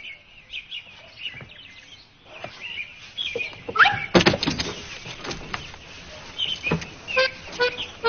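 Bird chirps with scattered knocks. About four seconds in come a short rising whistle and a burst of clacks, and near the end pitched instrument notes start, as music comes in.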